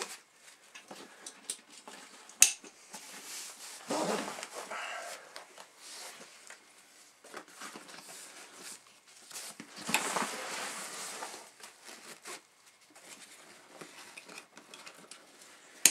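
Handling of a nylon backpack: fabric and strap webbing rustling in bursts as it is packed and adjusted. There is one sharp click about two and a half seconds in.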